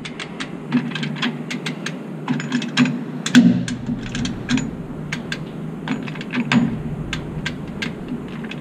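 Chain hoist being worked to put downward pressure on a semi truck's tie rod end: a run of irregular metallic clicks, several a second, loudest about three and a half seconds in, over a steady low hum.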